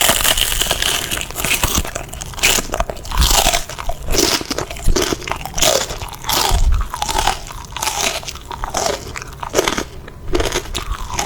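Close-up ASMR eating sounds: repeated crisp bites and crunching chews of a crunchy food.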